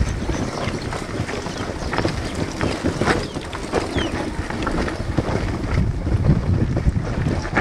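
Wind buffeting the microphone: a heavy, low rumble broken by irregular knocks and rattles.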